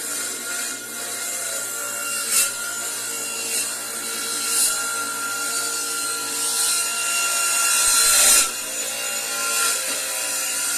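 A power tool running steadily while it cuts or sands wood, with a rasping surge each time the wood bites. The longest and loudest surge builds up to about eight seconds in, then drops off sharply.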